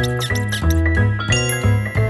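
Background music with short bass notes in a steady rhythm. Brief high squeaky chirps sound over it in the first half.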